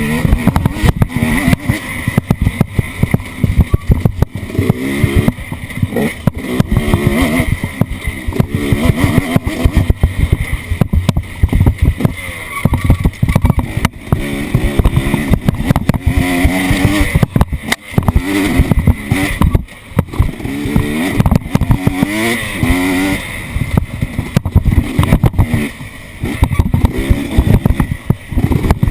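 Off-road vehicle engine running under changing throttle, its pitch rising and falling over and over, with frequent knocks and thumps throughout.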